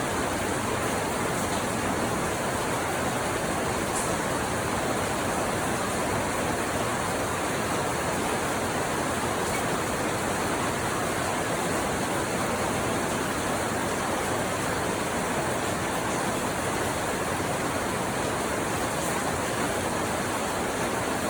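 Steady rain falling: a continuous, even hiss, with a couple of faint ticks of drops.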